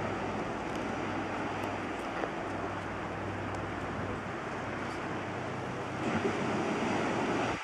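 Steady wind noise on the microphone mixed with surf washing on the shore, over a low steady hum, growing a little louder near the end.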